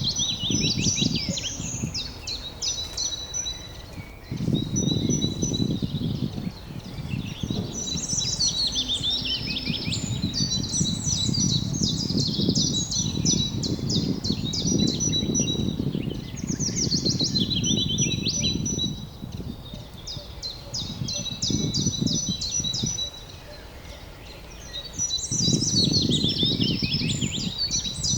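Songbirds singing in a field by a forest: complex phrases of quick trills and repeated notes, recurring every few seconds. Underneath, a low noise swells and fades several times.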